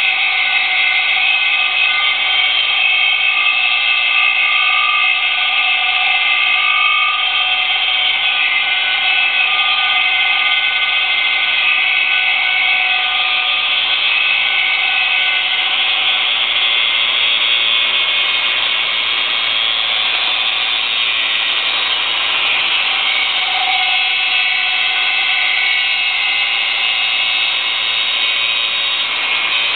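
Angle grinder with a grinding disc held against a large metal dyno roller, running without a break: a steady whine with several held tones over a grinding hiss. The disc grinds the roller's surface to prepare it for gritting, and its contact turns the roller as it grinds.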